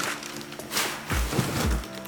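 Background music with a steady beat; deep kick-drum thumps come in about a second in, roughly two a second.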